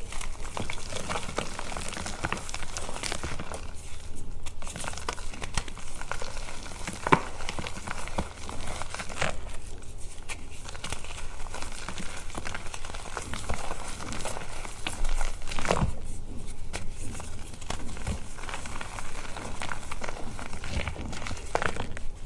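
Reformed gym chalk crunching and crumbling as hands squeeze and break the moulded pieces in loose chalk powder: a continuous run of dry crunches and gritty rubbing, with a few louder crunches along the way.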